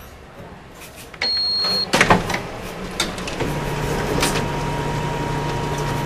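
Office photocopier: a short high beep about a second in, a couple of mechanical clunks, then the machine running with a steady hum as it prints a sheet.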